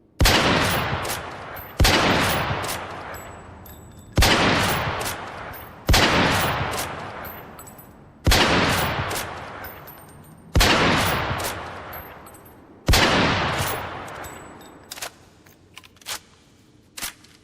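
Seven loud single gunshots, a second or two apart, each followed by a long echoing decay. A few faint, short clicks follow near the end.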